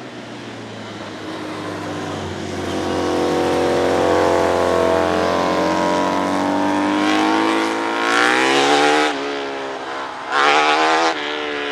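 A pack of racing motorcycles accelerating past in a group, their engines climbing steadily in pitch as they get louder. Two sharp, high revs come near the end.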